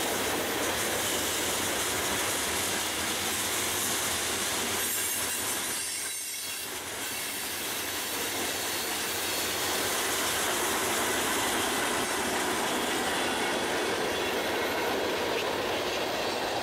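Freight cars of a mixed freight train rolling past on the rails: steady wheel-on-rail noise with some wheel squeal, dipping briefly about six seconds in. The last cars of the train go by in the second half.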